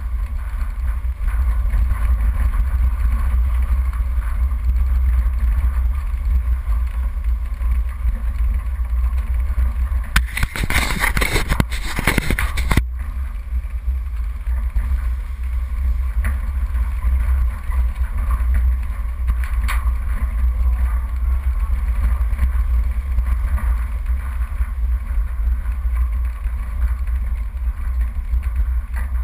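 Off-road 4x4 driving over a rough dirt track, heard as a steady low rumble of engine and wind on a bonnet-mounted camera. About ten seconds in, a loud rushing splash lasts a couple of seconds and stops abruptly as the vehicle ploughs through a puddle and throws up water.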